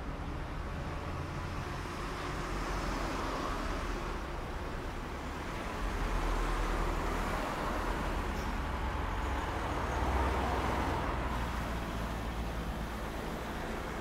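Busy city street traffic: a steady mix of car engines and tyre noise. The low engine rumble swells louder about six seconds in and again about ten seconds in as vehicles pass closer.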